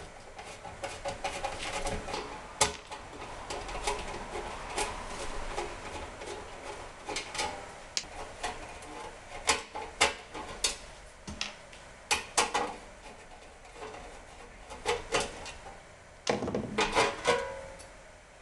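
Irregular clicks and small knocks of a screwdriver backing out the screws of a Dayton 6FHX9 blower's inlet flange, along with the parts being handled, with a denser run of clicks about sixteen seconds in.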